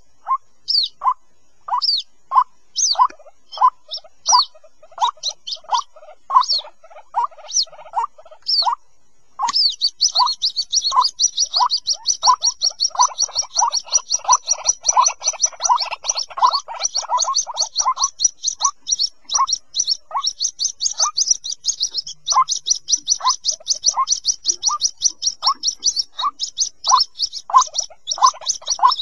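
White-breasted waterhen chicks calling for their parent: short, clipped notes repeat about twice a second. After a brief pause about nine seconds in, a fast, unbroken stream of high-pitched peeps joins them.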